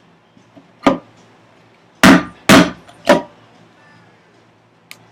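Mallet striking a chisel while cutting a housing dado in a wooden vise chop: four sharp knocks, one about a second in and three close together a second later.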